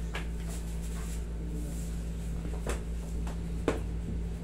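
Steady low hum of a room air conditioner, with three brief faint clicks spread through it.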